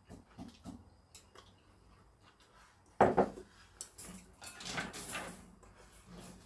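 A ceramic bowl is set down on a wooden table with a sharp knock about three seconds in. Around it are light clicks of metal chopsticks against the dishes and chewing.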